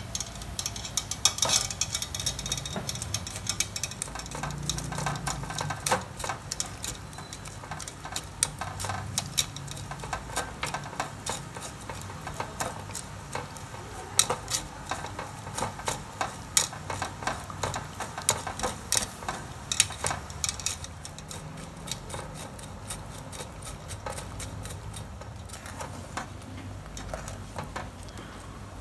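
A metal spoon stirring and scraping inside a wire-mesh strainer in a steel cooking pot, with frequent irregular clinks of metal on metal.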